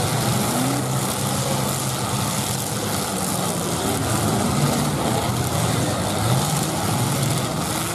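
Engines of several 1980s full-size demolition derby cars running together, mostly idling with now and then a short rev that rises and falls in pitch.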